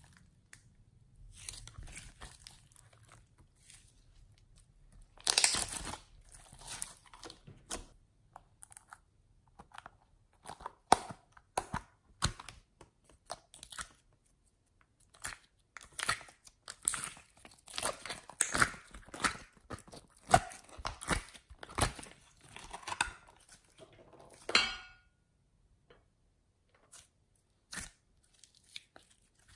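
Slime being squeezed, stretched and pulled apart by hand: irregular sticky crackles and snaps in clusters, with short pauses between handfuls and a quieter stretch near the end.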